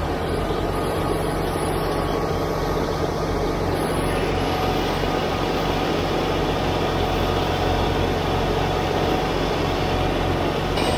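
Kubota BX23S compact tractor's three-cylinder diesel running steadily under load, driving a front-mounted snowblower that is throwing heavy wet snow. A thin steady whine sits over the engine.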